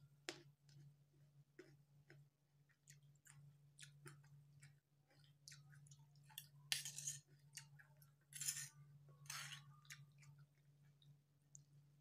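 Faint close chewing of a mouthful of parijoto-berry rujak: scattered small wet clicks and smacks, with a few louder smacks about halfway through. A low steady hum runs underneath.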